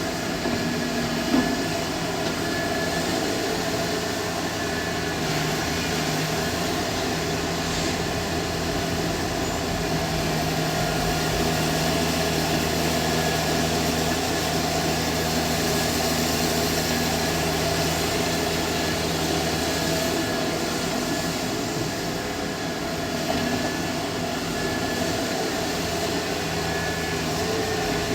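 Heavy diesel engines of an excavator and a dump truck running steadily under load while soil is loaded, with a single sharp knock about a second in.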